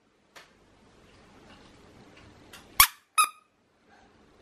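Squeaky dog toy being squeezed: a faint squeak about half a second in, then a loud two-part squeak, squeeze and release, near the end.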